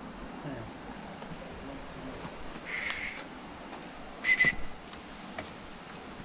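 Steady high-pitched drone of insects, with two short whistle-like calls, one about three seconds in and a louder one about four and a half seconds in.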